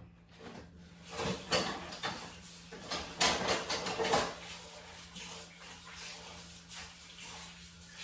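Kitchen handling noises: a run of rustling and clattering from bowls and containers about one to four seconds in, then only faint background.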